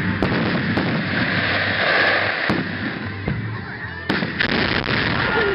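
Aerial firework shells bursting overhead: a dense crackle broken by several sharp bangs, with a louder burst of reports a little after four seconds in.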